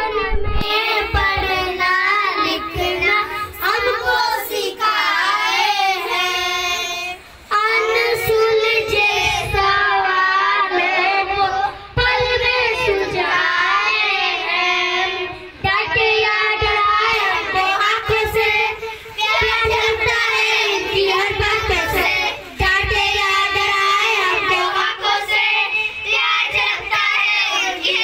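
Children singing a song together, a boy singing into a hand-held microphone, with short breaks between lines.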